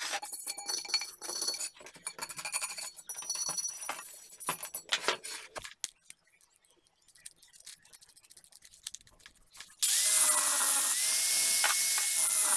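Rust being scraped by hand off the inside of a steel car wheel rim, with irregular scratching and clinking, then a few small clicks while a disc is fitted. About ten seconds in, an angle grinder starts with a sudden loud hiss and a steady whine as its grinding disc bites into the steel rim.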